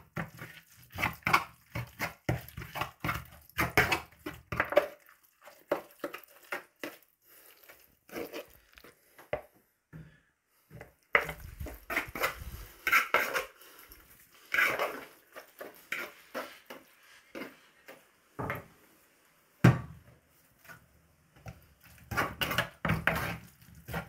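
A metal utensil mixing and mashing guacamole in a bowl: quick, irregular clinks and scrapes against the bowl, with a couple of short pauses.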